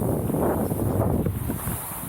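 Skis sliding and turning through wet, grabby snow: a rushing scrape that swells and eases several times, with wind buffeting the microphone.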